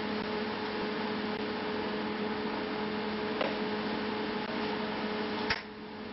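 Steady electrical hum and fan hiss from a switched-on TIG welding set, waiting before the arc is struck. A sharp click comes about five and a half seconds in, after which the hum drops away.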